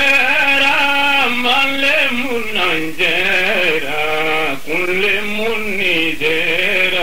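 A man's voice chanting solo in a melodic line, holding notes of up to about a second with a wavering pitch, with short breaks between phrases.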